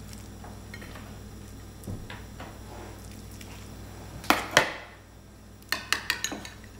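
Metal kitchen utensils clinking against a plate and counter: two sharp clacks about four seconds in, then a quick run of lighter clicks near the end, over a faint steady hum.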